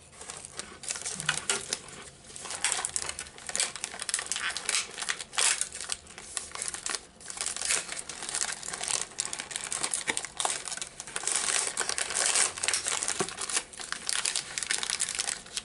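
Thin plastic cracker wrapper crinkling and crackling as it is handled, folded and squeezed, a dense run of irregular crackles.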